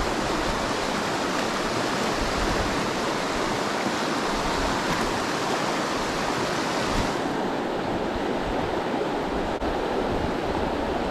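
Fast-flowing mountain river rushing over rocks and riffles, a steady full roar of water that turns duller about seven seconds in.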